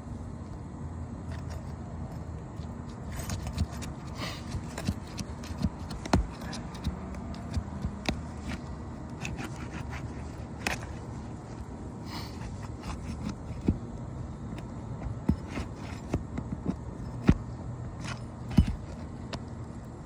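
Scraping and scattered sharp knocks of a roofing tool working under asphalt shingles, prying up shingles and pulling roofing nails, over a steady low rumble.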